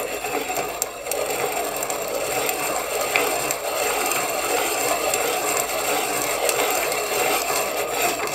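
Manual hand-cranked piston ring filer: its cutting stone, turned by the crank, grinds against the end of a piston ring in a steady rasp. The ring's end gap is being filed wider to bring it up to spec.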